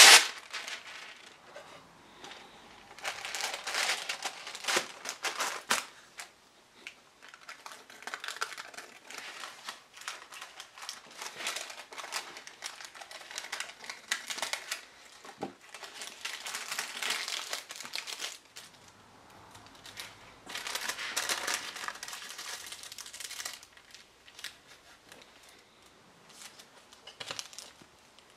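Wax paper crinkling and rustling in repeated bouts as it is handled, folded and trimmed with scissors around a board. It opens with a loud burst as the sheet is torn off the roll at the box's cutting edge.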